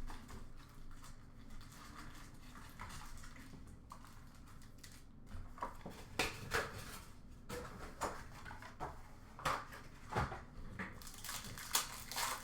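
Trading cards and their packaging being handled on a table: scattered soft taps, slides and rustles, busier in the second half.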